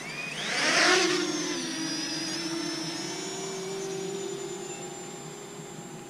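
Parrot Anafi quadcopter's motors and propellers spinning up for takeoff: a whine rising in pitch through the first second, then a steady propeller hum and whine that fades slowly as the drone climbs away.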